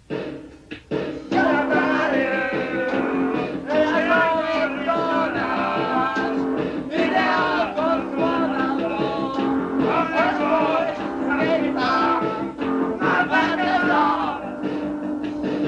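Punk rock band playing guitar and drums, recorded lo-fi on a dictaphone in a living room. Nearly silent for the first second, then the full band comes in loud.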